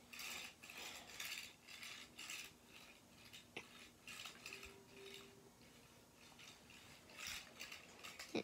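Faint rubbing and scraping of a Hot Wheels toy semi-truck pushed by hand across carpet, in a run of soft short strokes, with a small plastic click about three and a half seconds in.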